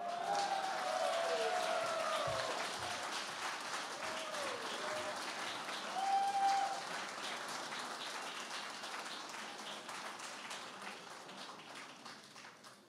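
Audience applauding, with cheers and whoops in the first couple of seconds and another about six seconds in. The applause dies away near the end.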